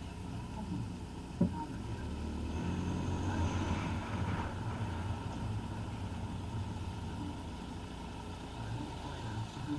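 Car engine and tyre noise of a car driving slowly, a steady low hum, with one short knock about a second and a half in.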